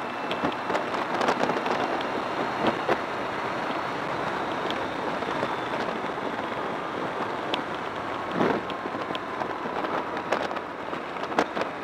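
Wind noise on the microphone of a pocket camcorder mounted on a BMW K1200R Sport motorcycle riding along a road: a steady rushing hiss with scattered sharp clicks and knocks, gusting louder about eight seconds in and again near the end.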